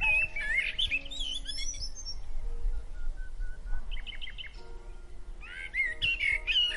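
A songbird singing: a quick warbling phrase at the start and another near the end, with a short run of rapid notes in between. Underneath is soft background music with long held notes.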